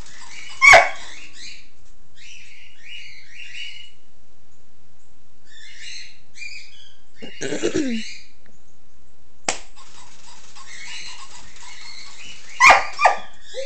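Short, sharp dog barks: one loud bark about a second in and two in quick succession near the end. Softer high chirping and squeaking sounds come in between.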